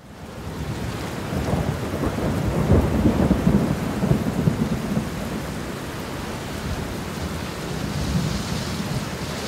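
Steady roar of heavy rain and churning floodwater, with a deeper rumble that swells between about two and five seconds in.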